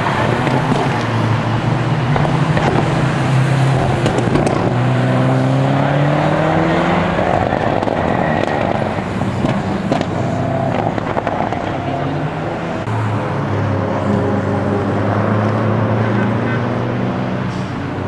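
Several racing cars' engines running hard as they lap a circuit, the engine notes rising and falling as the cars accelerate through a bend and pass by, over tyre and road noise.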